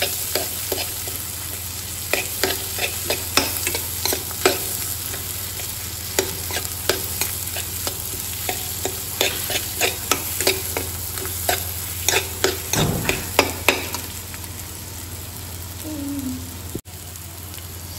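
A metal spoon stirs and scrapes mashed jackfruit seeds and onions around a black iron kadai, clicking often against the pan over a steady sizzle of frying. The stirring stops for the last few seconds, leaving the sizzle.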